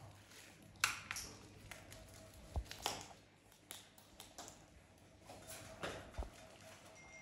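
Scattered light clicks and clinks of macaws' and a cockatoo's beaks picking seed from a metal tray and cracking the seeds.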